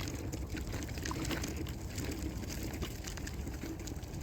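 Water running and splashing steadily, with many small irregular splashes, over a low rumble of wind on the microphone.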